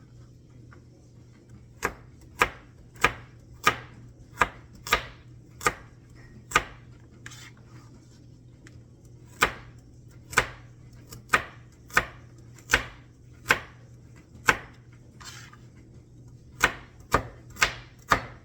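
Kitchen knife chopping baby carrots on a cutting board: sharp, separate knocks at an uneven pace of one to two a second, with a short pause about halfway.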